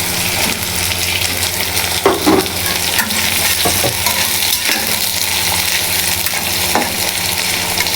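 Chopped onions and green chillies sizzling as they fry in hot oil, stirred with a spatula that scrapes and knocks against the pan a few times.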